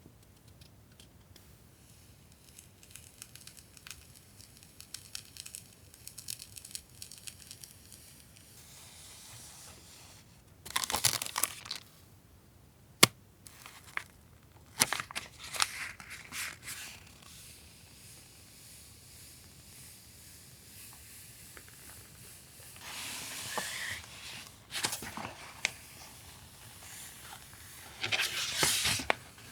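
Stationery packaging being handled and opened: soft rustles and small clicks, with several louder bouts of crinkling and tearing and one sharp click about halfway through.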